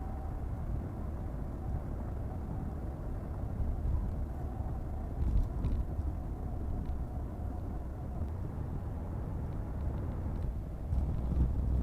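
Steady low rumble of a car being driven, road and engine noise with no clear events.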